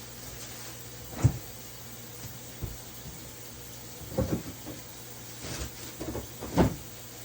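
Knocks and clunks of kitchen containers and lids being handled and set down on a counter: a sharp knock about a second in, then a few more in small clusters, with a loud one near the end.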